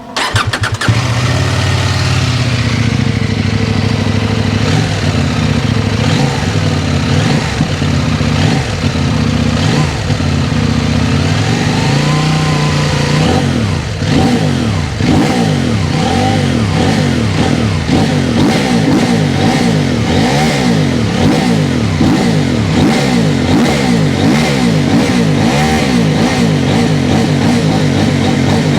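CFMOTO 800MT Touring's parallel-twin engine breathing through a LeoVince aftermarket exhaust: it catches and settles into a steady idle, then from about halfway is revved again and again with quick throttle blips that rise and fall in pitch.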